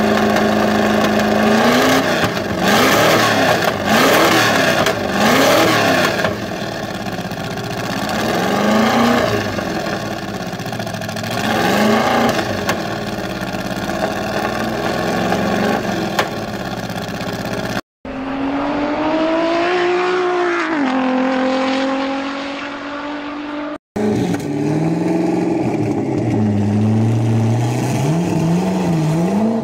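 Ford GT40-style car's carburetted V8, breathing through open upswept tailpipes, idling and then revved in a string of quick blips, with further single revs every few seconds. After a cut comes one longer rev that climbs and falls back. Then a 2005–06 Ford GT's supercharged V8 is blipped several times in quick succession near the end.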